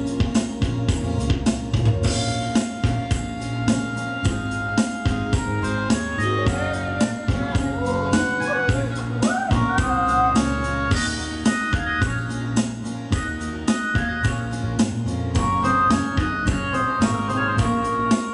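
Yamaha electronic keyboard playing an instrumental tune, an organ-like melody over the keyboard's drum rhythm, with a steady quick beat.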